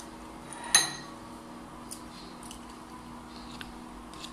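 A metal fork clinks once against a dish, sharp and ringing, a little under a second in, followed by a few faint ticks. A steady low hum runs underneath.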